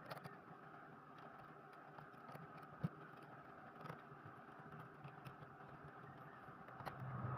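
Faint scattered clicks and light handling noise over a steady background hum, with one sharper click about three seconds in.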